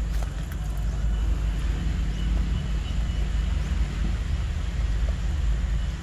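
A steady low rumble that fills the whole stretch, with no clear animal call over it.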